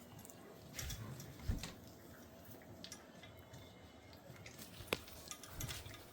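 Golden retriever puppies eating from their food bowls: soft, scattered clicks and small knocks, with a dull thump about a second and a half in and a sharper click near the end.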